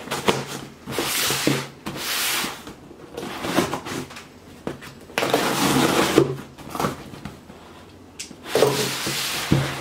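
A cardboard box being opened: a knife blade slitting packing tape along the box's seams in several raspy scraping strokes, then cardboard flaps rubbing as they are pulled open near the end.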